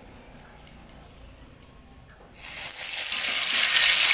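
A few faint clinks, then a bit over two seconds in a loud frying sizzle starts suddenly and keeps on: the chilli seasoning going into the hot pan.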